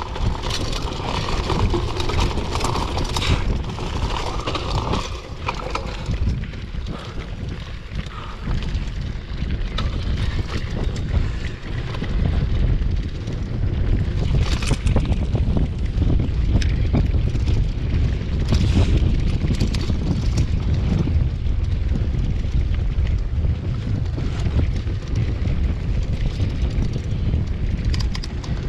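Wind buffeting the microphone as a mountain bike rolls downhill on a dirt forest trail, with tyre noise on the dirt and short knocks and rattles from the bike going over bumps.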